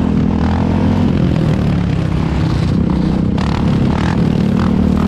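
Quad engines running steadily under throttle, their pitch shifting slightly about halfway through.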